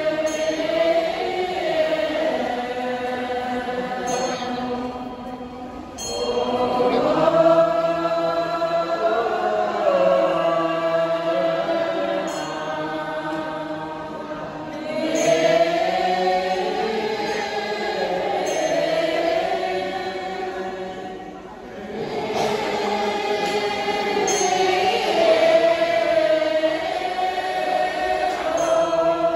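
A group of voices chanting Buddhist puja prayers together in long held phrases, with brief pauses for breath between them.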